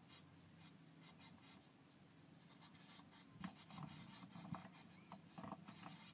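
Blue tit chicks shuffling in the nest material of a nest box: faint, irregular scratching and rustling that gets busier after about two seconds.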